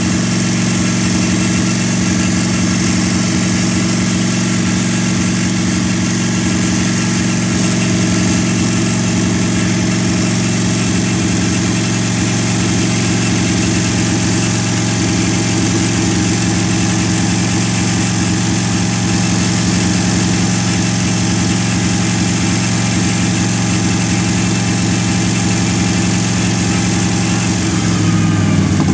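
Fuel-injected 320 cubic inch Buick straight-eight engine of a land speed lakester running at a steady idle. Near the end its note dips.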